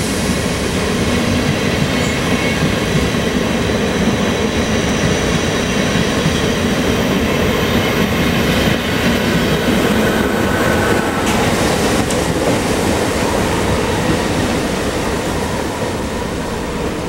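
NS ICM "Koploper" intercity electric train running past along the track: a steady rumble of wheels on rail with a thin high wheel squeal, easing off near the end as the train moves away.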